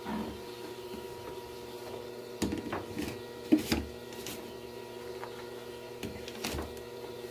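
A steady hum with a scattering of sharp knocks and clicks; the loudest knock comes a little past halfway.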